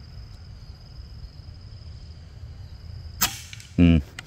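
A Naga Runting air rifle firing a single pellet shot about three seconds in: one sharp crack with a short ring after it. About half a second later comes a brief, louder low-pitched sound.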